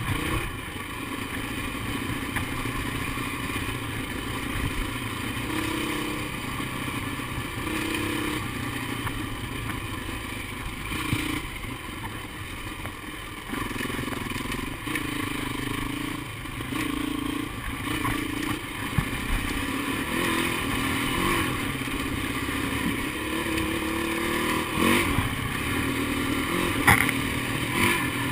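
Dirt bike engine running under changing throttle, its pitch stepping up and down again and again, with a few sharp knocks and rattles from the bike near the end.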